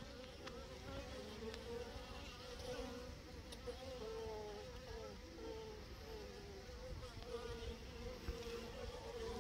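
Honeybees buzzing as they fly in and out of their hive: a faint hum of several overlapping wingbeats that waver and glide in pitch.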